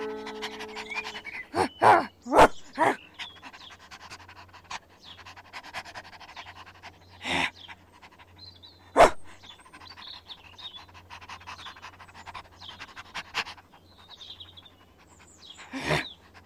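A dog panting: a sound effect voicing a plasticine cartoon dog. A cluster of short, sharp, louder sounds comes about two seconds in, with more around seven and nine seconds and one near the end.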